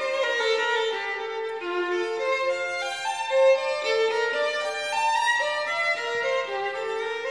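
Background music led by a violin playing a melody.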